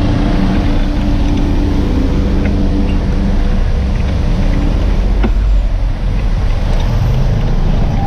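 Street traffic: a minibus engine running close by for the first two seconds or so, over a steady low rumble that runs on after it fades.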